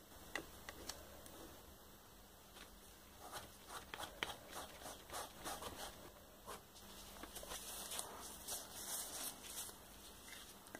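Faint scratchy rubbing and small taps of a cloth wiping ink off an inked mount-board collagraph plate, the strokes growing busier after a few seconds and briskest near the end.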